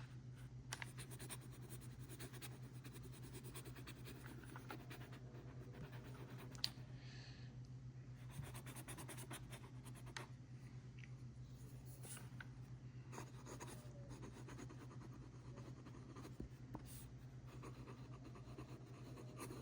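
Faint scratching of a pen nib writing on paper, in short irregular strokes, over a steady low hum.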